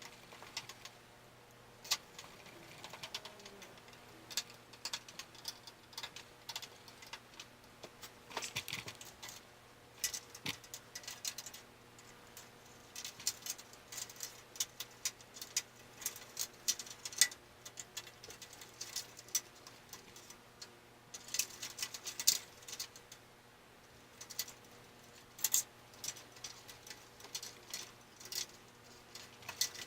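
Small irregular clicks, taps and rattles of computer parts, screws and plastic being handled and fitted during a PC build, over a faint steady hum.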